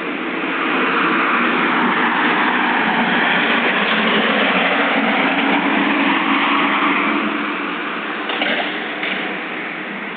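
Road traffic passing, a concrete mixer truck among it, heard as a steady rushing noise through a security camera's small microphone; it swells over the first couple of seconds and eases near the end.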